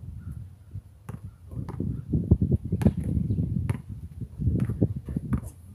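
A basketball bouncing on a concrete court: a handful of sharp thuds at uneven spacing, over a low rumbling noise.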